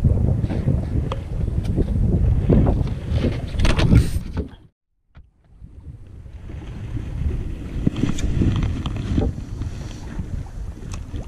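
Wind buffeting the microphone, with faint clicks mixed in; the sound cuts out completely for about a second halfway through, then returns.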